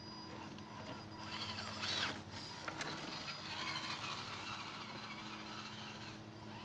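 Radio-controlled scale rock crawler's small electric motor and gears whining on and off with the throttle, with a few knocks and scrapes of its tyres and chassis on the rocks.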